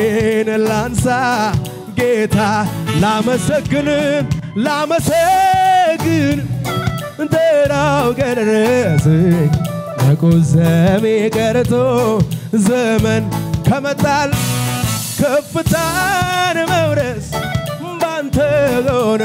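A male singer singing an Amharic gospel worship song live into a handheld microphone, accompanied by keyboard and a steady beat.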